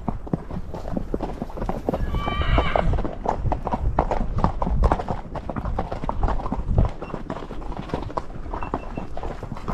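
A saddle horse walking on a dirt and gravel track, its hooves clopping in an uneven walking rhythm. About two seconds in, a horse whinnies briefly.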